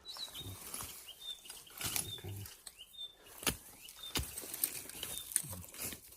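Several sharp knocks and a few soft thuds from digging in soil for plant roots, with a bird giving short high chirps about once a second.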